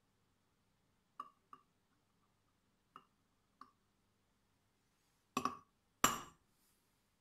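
Metal tool tapping on a thick aluminium plate as hole positions are marked out: four light clicks, then two louder, sharper strikes with a brief metallic ring near the end.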